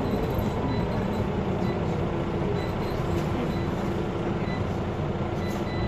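Scania Omnicity single-deck bus running along the road, heard from inside the passenger saloon: a steady mix of diesel engine and road noise.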